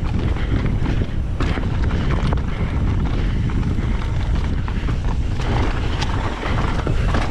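Strong wind buffeting the action camera's microphone, a steady low rumble throughout, with a few scattered clicks and knocks.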